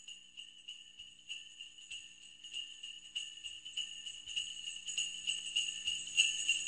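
Sleigh bells jingling in a steady shaking rhythm, about three shakes a second, growing steadily louder.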